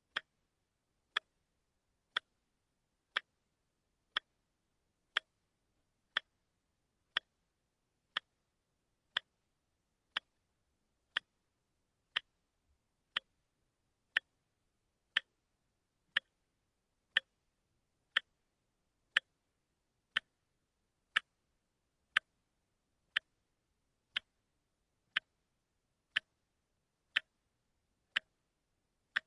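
Watch ticking steadily, one sharp tick a second, with silence between the ticks.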